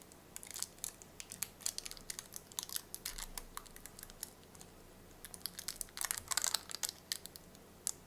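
Irregular small crinkles and clicks of hands handling the torn-open headphone driver's thin plastic diaphragm and voice coil, with a denser run of crackling about six seconds in.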